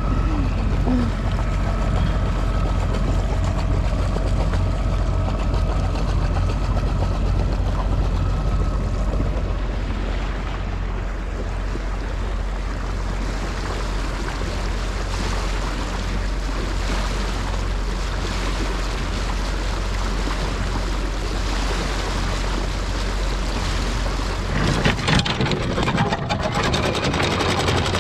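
Moody 33 yacht's inboard engine running steadily under way, with wind and water noise over it. About 25 seconds in, the low drone drops away and a rougher rushing noise takes over.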